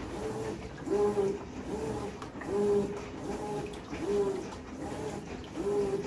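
Brastemp BWK14 top-load washing machine agitating a load of towels in water: the motor hum rises and falls in a steady rhythm with each back-and-forth stroke of the agitator, over the slosh of water and wet fabric.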